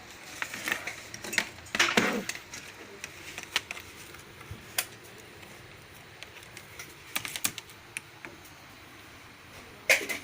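Irregular clicks and taps, some in quick runs, loudest around two seconds in and just before the end.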